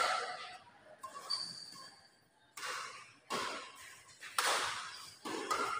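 Badminton rally in a reverberant hall: rackets striking the shuttlecock, several sharp hits about a second apart, each echoing off the walls.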